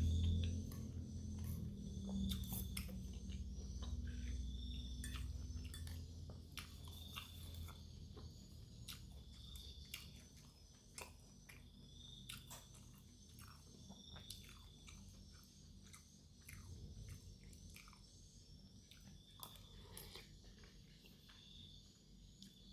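Close-miked chewing of noodles and meatballs, with many small wet mouth clicks. The chewing is loudest at first and grows quieter over the first several seconds. A faint, short, high chirp repeats every second or two.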